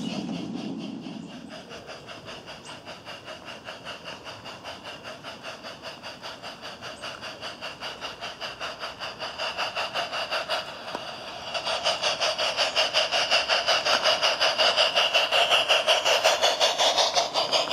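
Simulated steam-locomotive chuffing from the onboard MyLocoSound steam soundcard of a battery-powered model Black Hawthorn 0-4-0 saddle tank, an even beat of about four chuffs a second. It grows louder in the second half as the loco draws near and passes.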